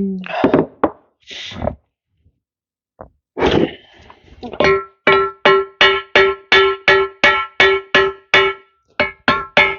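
Hammer blows on a steel tractor part, each with a ringing metallic clang, at a steady rate of about three a second, struck to free a stuck nut. The blows stop shortly after the start, with some scraping and handling noise in the pause, then resume about four and a half seconds in.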